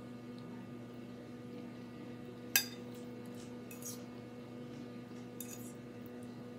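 A metal fork clinks sharply against a plate once about two and a half seconds in, then scrapes lightly across it a couple more times as noodles are gathered up. A steady low hum runs underneath.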